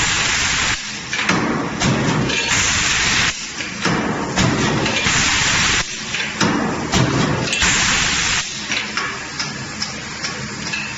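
Sheet-metal power punch press with CNC feeder running in a regular cycle: a hiss of air about every two and a half seconds, with lower machine rumbling and knocks between.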